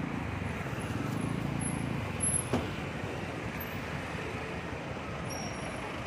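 Slow, congested street traffic, mainly motorbike, scooter and car engines running at low speed close by, with a low engine hum that is strongest in the first couple of seconds. A single short knock sounds about two and a half seconds in.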